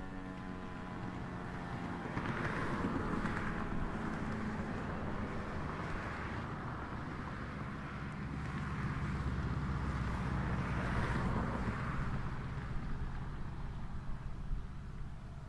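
Federal Signal Eclipse 8 outdoor warning siren winding down, its tone sliding lower and fading out within the first two seconds. After that a steady rumble with hiss rises and falls, like a vehicle passing on the road, loudest near the end.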